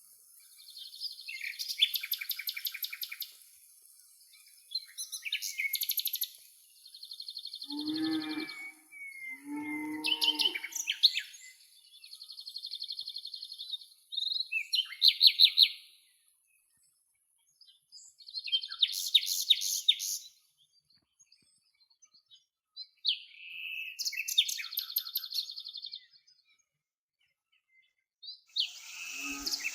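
Small birds chirping in repeated bursts of quick high notes, with a cow lowing twice in short calls about two seconds apart near the middle.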